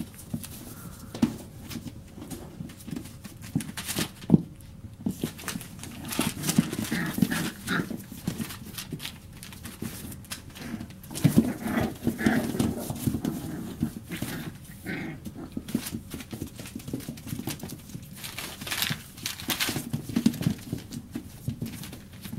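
Four-week-old border collie puppies play-fighting, with little growls and yips over the scuffling and rustling of their paws on newspaper and towels.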